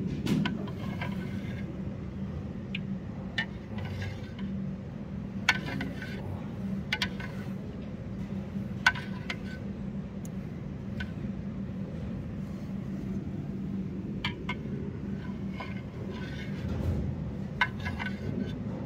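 A metal spoon clinking and scraping against a ceramic soup bowl and the meal tray: short sharp clinks every second or few, over a steady low hum.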